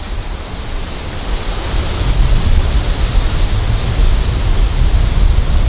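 Strong wind buffeting the microphone: a loud, gusting low rumble that builds over the first two seconds and then stays strong.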